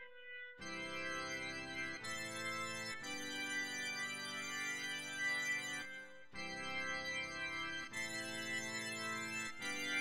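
Roland XV-5080 sound module playing its "Concert B3" preset, a sampled Hammond B-3 style organ. Held organ chords start about half a second in and change every one to two seconds, with a brief break near the middle.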